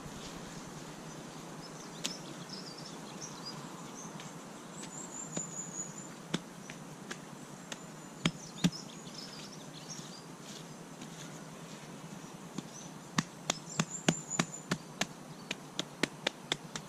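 Quiet outdoor ambience with short high chirping trills twice, and sharp knocks scattered through it that turn into a quick run of about three a second in the last few seconds.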